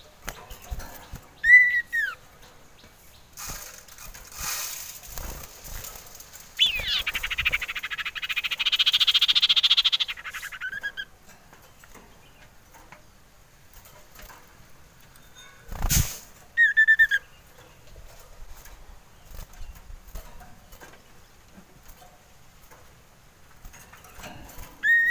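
Male common iora (cipoh) calling: short clear whistled notes, one near the start, one about two-thirds through and one at the end, and a long rapid chattering trill lasting about four seconds near the middle. A single sharp knock comes just before the second whistle.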